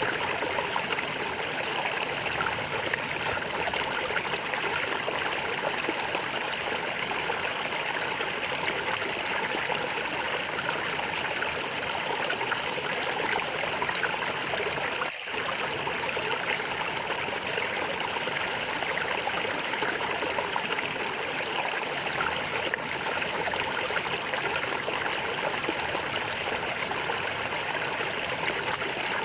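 Flowing stream water gurgling and trickling steadily, with a momentary drop in sound about halfway through.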